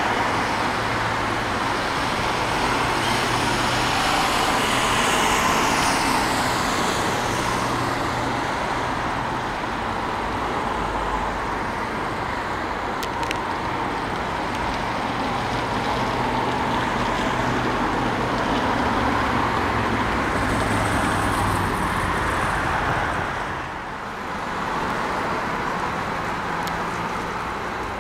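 Steady road traffic noise, with vehicles passing.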